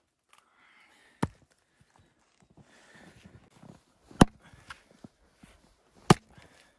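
Axe chopping firewood on a chopping block: three sharp, separate chops a couple of seconds apart, the middle one the loudest.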